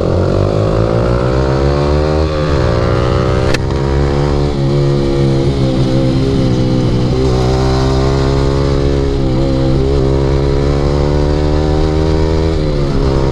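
Yamaha R15 V3 single-cylinder engine with an aftermarket Akrapovic exhaust pulling hard: the revs climb, drop sharply at an upshift about two and a half seconds in, then stay high with a few brief dips as the throttle is eased and reopened through the corners.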